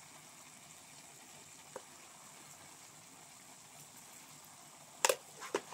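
Faint, steady sizzle of chopped pumpkin leaves and long beans cooking in a steel kadhai, with a light tick about two seconds in and a sharp clack of a steel utensil against the pan near the end.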